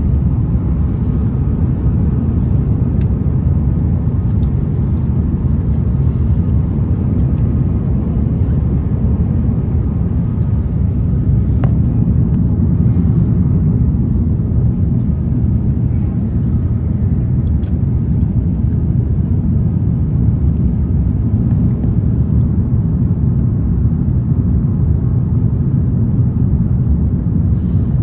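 Steady low rumble of an airliner heard from inside the passenger cabin, even in level throughout.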